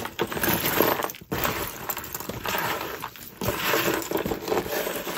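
A jumble of costume jewelry (metal chains, beads, bangles and earrings) poured out of a cardboard box, rattling and clinking in about three pours with short pauses between them.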